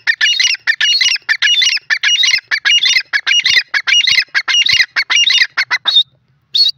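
Grey francolin calling: a loud, fast run of repeated notes that stops about six seconds in, followed by one more note just before the end.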